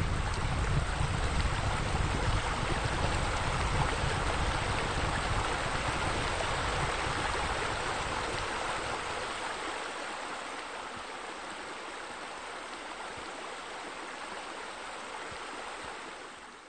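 Steady rushing, splashing water from pool bubblers and a spa spillover. A deep rumble underneath fades out about halfway through, and the water gets somewhat quieter from there.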